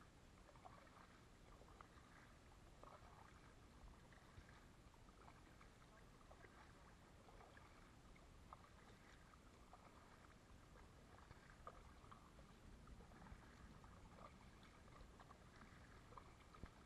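Near silence on calm water, broken by faint, scattered drips and small splashes from a kayak paddle.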